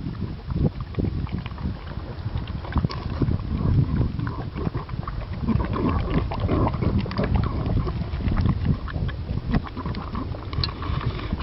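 English bulldog eating chunky dog food from a stainless steel saucepan: chewing and smacking, with many quick irregular clicks throughout.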